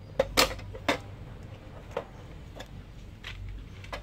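Sharp plastic clicks and knocks from handling a Brother P-touch label printer and its TZe tape cartridge while opening the tape compartment: a quick cluster of loud clicks in the first second, then scattered lighter ones.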